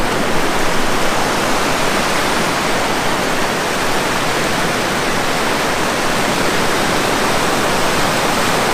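Steady rush of surf washing through the shallows around the rocks: an even, unbroken noise with no breaks.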